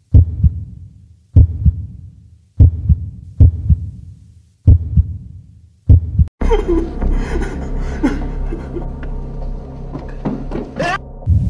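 Heartbeat sound effect: slow, heavy double thumps about every second and a quarter, each fading away. About six seconds in, the heartbeat stops and a dense, distorted noise with wavering, warbling tones and a low hum takes over.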